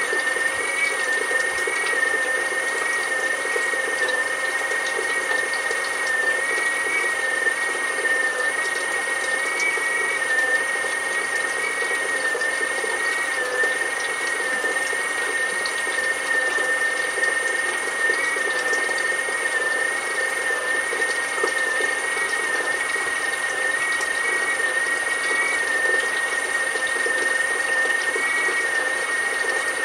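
Bench-mounted Vivolo oil pump driven by a brushless electric motor, running steadily under pressure: a high whine that wavers slightly in pitch, over a steady hiss.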